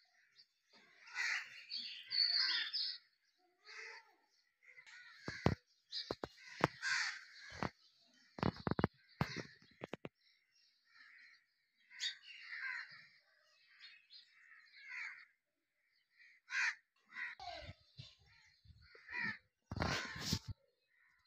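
Crows cawing again and again, with sharp knocks and bumps from the phone being handled about five to nine seconds in and again near the end.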